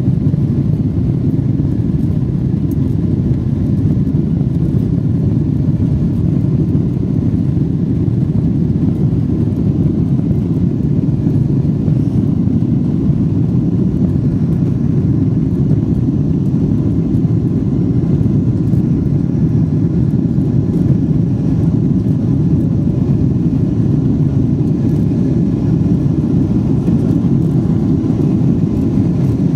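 Cabin noise in a Boeing 777-300ER at takeoff power: the GE90 engines and airflow make a loud, steady, low rumble heard from inside the cabin.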